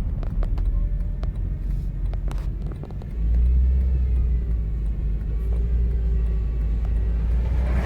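Car driving, its low engine and road rumble heard from inside the vehicle, growing louder about three seconds in, with a few light clicks or rattles in the first couple of seconds.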